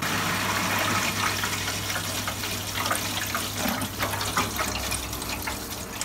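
Mains water hissing steadily through a Vaillant boiler's built-in filling loop into the heating system, repressurising it after an F22 low-water-pressure fault, with a steady low hum underneath.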